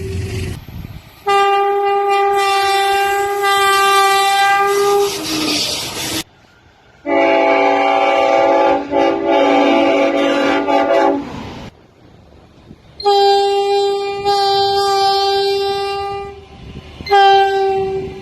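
Locomotive air horns sounding as trains pass, in several separate clips: a long horn blast about a second in, a different multi-note horn chord in the middle, then another long blast and a short one near the end. Each clip starts and cuts off abruptly.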